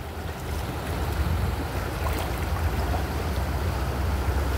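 Steady wind rumble on the microphone over shallow water lapping and swirling around the legs and crate.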